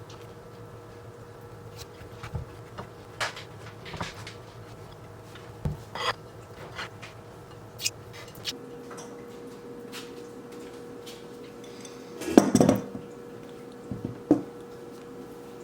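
Kitchen clatter of dishes and cutlery being handled: scattered light clinks and knocks, with a louder clatter about twelve seconds in, over a faint steady hum.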